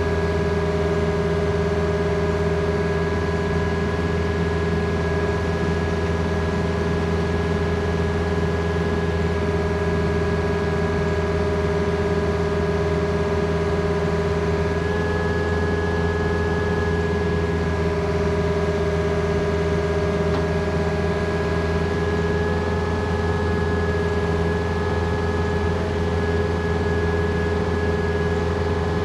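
Compact excavator's diesel engine running steadily while the operator inches the bucket and thumb forward; its tone shifts slightly about halfway through.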